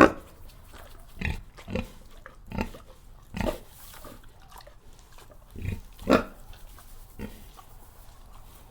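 Domestic pig grunting: short, separate grunts at irregular intervals of about a second, with the loudest about six seconds in.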